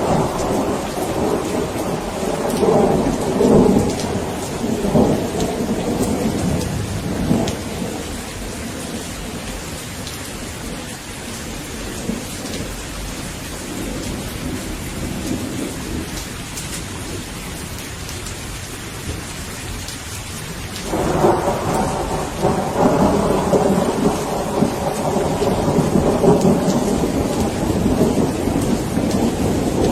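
Steady rain with rolling thunder. A rumble at the start dies away over several seconds, and a second roll breaks in suddenly about two-thirds of the way through and keeps going.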